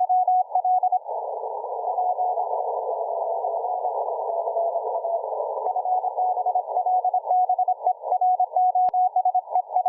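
Morse code (CW) signal from a shortwave receiver: a single mid-pitched beep keyed in dots and dashes over a narrow band of radio hiss. The keying turns faint about a second in and comes back strong and fast about six seconds in.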